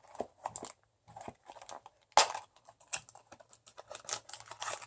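Blind-box merchandise packaging crinkling and crackling as it is handled, in scattered clicks and rustles, with one sharper, louder crackle about two seconds in.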